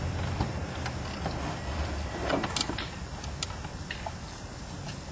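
Socket ratchet clicking irregularly as the new fuel filter cap is turned down, over a steady low hum.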